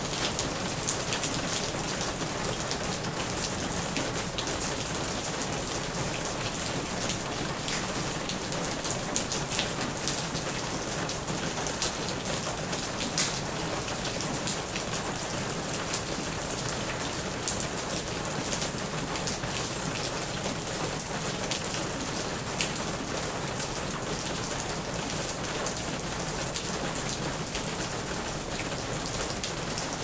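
Rain falling on plastic: a steady hiss of rain with many sharp, separate ticks of drops striking the plastic.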